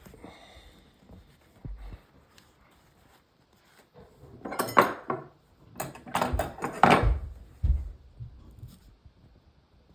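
Hard objects being handled on a work surface: a cluster of knocks and clatters about four and a half seconds in, another run of them around six to seven seconds, and a couple of low thumps.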